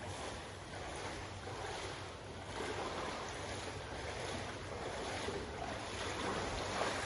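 Steady rushing outdoor noise of wind on the microphone mixed with water.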